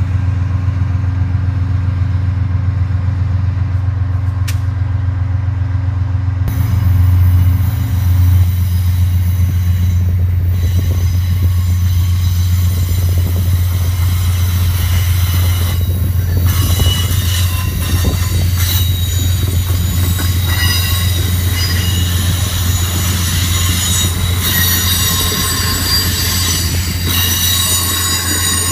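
Amtrak Amfleet passenger cars rolling past on a curve: a steady low rumble with wheel noise, and high-pitched wheel-flange squeal coming in about halfway through.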